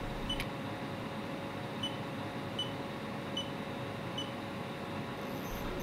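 Steady hum and hiss of a Haas CNC mill standing by, with a faint steady tone. In the middle come four faint short high beeps, about 0.8 seconds apart.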